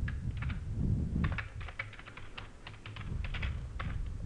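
Typing on a computer keyboard: a quick, irregular run of key clicks, over a low rumble.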